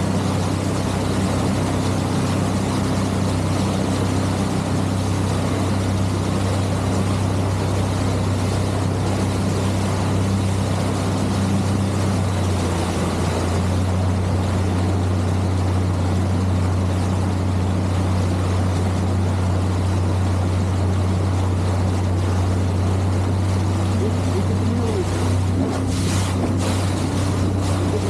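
An engine running steadily, a low hum that shifts slightly about 13 seconds in, over a constant rushing noise.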